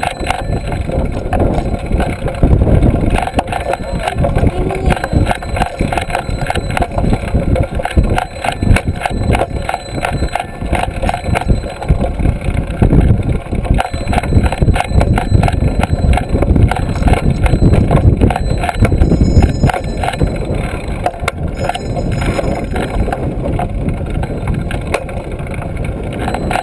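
Wind buffeting a handlebar-mounted camera's microphone as a trail-a-bike rolls along, with a steady rattle of road vibration through the bike.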